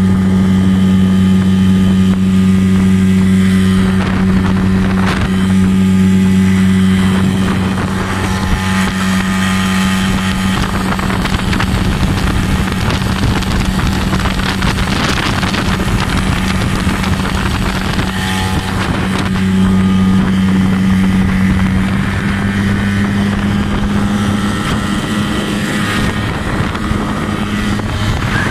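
Mariner 40 hp two-stroke outboard motor running under load at a steady speed, a loud, even drone that holds its pitch, with wind on the microphone and rushing water that grow stronger in the middle.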